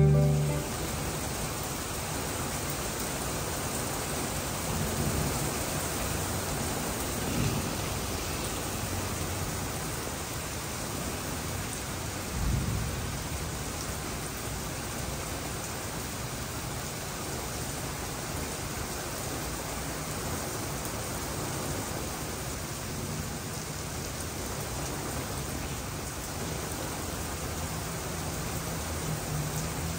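Heavy rain pouring steadily in a thunderstorm. Low thunder rumbles swell up a few times in the first half, the strongest about twelve seconds in.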